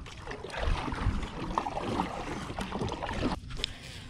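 Kayak paddle strokes: the blade dipping and pulling through the water with irregular splashes and drips as the kayak is turned around.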